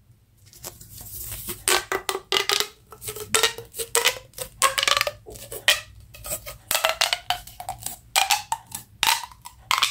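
Irregular clicking and clattering from small hard objects being handled during an unboxing, with a faint wavering tone underneath.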